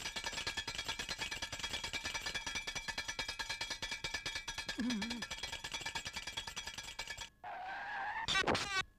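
Cartoon sound effects: a fast, even clatter of several strikes a second that stops abruptly about seven seconds in, followed near the end by a short whistle-like tone that slides up and then down.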